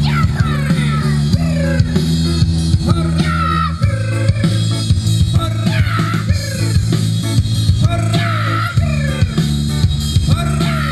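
A song playing: a voice singing over a band, with heavy bass and a steady drum beat.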